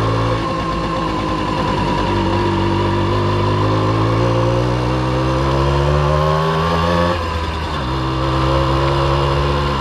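1989 Simson S51 B moped's 50 cc single-cylinder two-stroke engine running. Its pitch climbs steadily for about five seconds as it is revved, falls back suddenly about seven seconds in, then holds steady.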